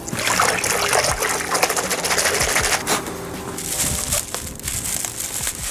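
Water splashing and sloshing in a bucket of warm soapy water, loudest for the first three seconds and then dropping to a quieter hiss.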